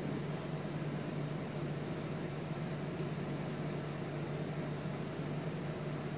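Steady low machine hum under an even hiss.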